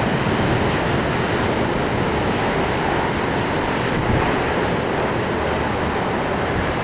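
Heavy storm surf breaking and churning against the shore, a steady dense rush of water, with strong wind blowing across the microphone.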